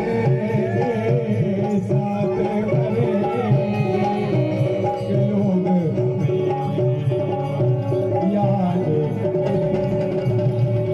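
Indian folk music for a stage dance: a hand drum keeps a busy, even rhythm under held melodic notes.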